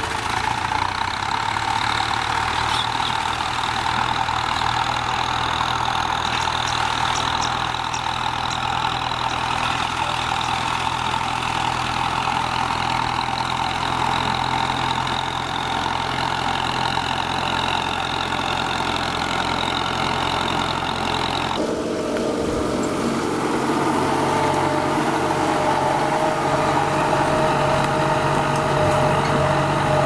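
Kubota M9540 tractor's four-cylinder diesel engine running steadily while pulling a disc plough through dry soil. About two-thirds of the way through, the engine note changes abruptly to a different steady pitch.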